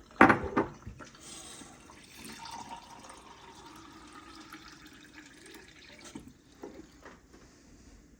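Water dumped out of a small container with a short splash, then water poured in a thin stream into the container for several seconds, fading out about six seconds in.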